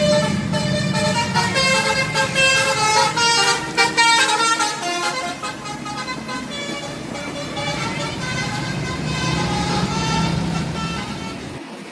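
Bus 'telolet basuri' multi-tone horn playing a tune of short stepped notes over the low rumble of the bus engine, busiest in the first half and softer after.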